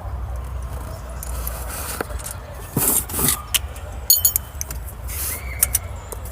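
Loose steel bolts clinking and rattling as they are handled, with a bright metallic ring about four seconds in, over a steady low rumble.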